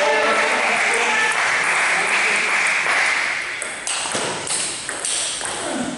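Voices and general hall noise, then from about four seconds in a table tennis rally: the celluloid ball clicking sharply off the paddles and the table, several hits about half a second apart.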